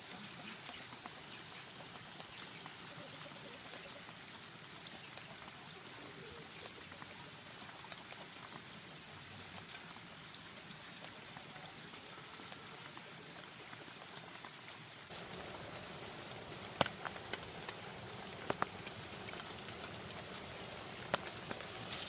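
Insects, cicada-like, droning in a steady high-pitched whine over outdoor background noise. The drone changes abruptly about two-thirds of the way through, becoming two pulsing tones, and a few short, sharp knocks follow.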